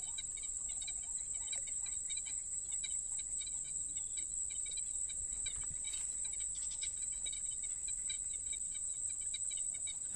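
Insects trilling: one steady, high-pitched drone that never breaks, with fainter scattered chirping beneath it.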